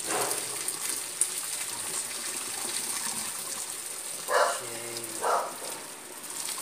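Hot cooking water pouring in a steady splashing gush from a pot through a metal strainer into a sink. About four and five seconds in, a dog barks twice.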